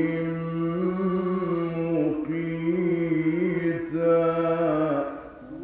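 A male Quran reciter chanting in the ornamented mujawwad tajweed style, holding one long melismatic phrase that wavers in pitch and ends about five seconds in.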